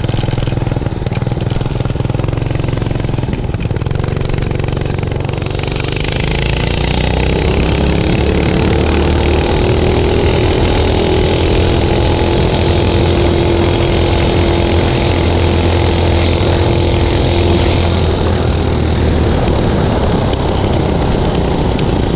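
Mini bike's 5 hp Honda single-cylinder engine at full throttle on a top-speed run. Its note climbs over the first several seconds as the bike gathers speed, holds steady at about 30 mph, then drops as the bike slows near the end.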